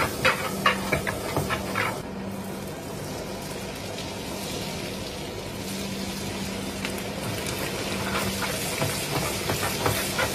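Butter and oil sizzling and crackling in a frying pan with garlic and spices, with popping crackles in the first two seconds. Then a steady frying hiss as a whole squid goes into the hot fat, with more crackles near the end, over a steady low hum.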